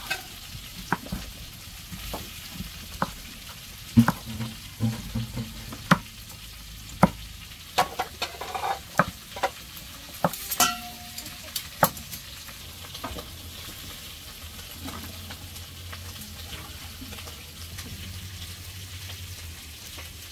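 Ribs and shank meat sizzling in a pot, with a spoon stirring and knocking against the pot about once a second; after about twelve seconds the knocks stop and only the sizzling goes on.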